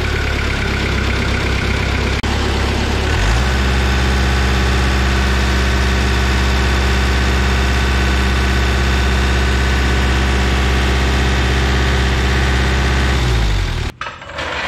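Rayco RG50 stump grinder's engine running steadily just after being started. Its pitch steps up slightly about three seconds in while the hydraulic control levers are worked, then it winds down and shuts off near the end.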